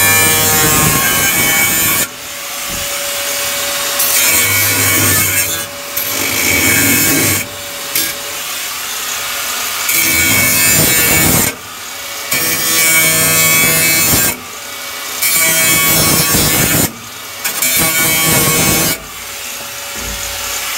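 Angle grinder with an abrasive disc cutting into the rusted sheet-steel cargo floor pan, the motor whining under load. It comes in short stretches that change abruptly every two to three seconds.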